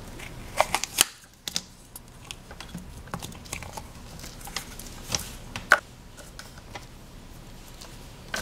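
Hands handling a plastic Play-Doh tub and pulling modeling dough out of it: scattered sharp clicks and taps of plastic, loudest in a cluster about a second in and again about five seconds in.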